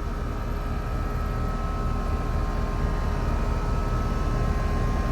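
5-ton central air conditioner / heat pump outdoor unit running: a steady low hum and fan rush with a faint constant whine, no change in speed.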